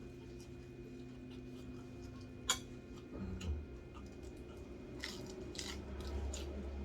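Someone eating a bowl of spicy rawon: chewing, with cutlery clinking against the dish, a sharp clink about two and a half seconds in and a few more clicks near the end.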